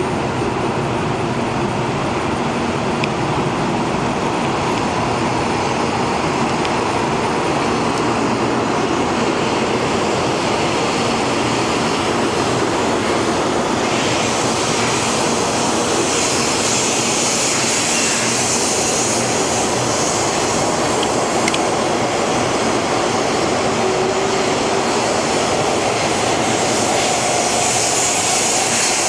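Taiwan High Speed Rail 700T bullet train running past a station platform: a steady rushing noise, with a brighter hiss coming in about halfway through.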